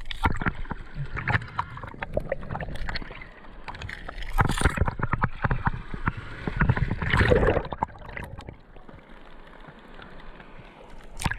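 Kayak moving fast down a river current: water rushing and splashing against the hull, with many short splashes and a couple of louder surges.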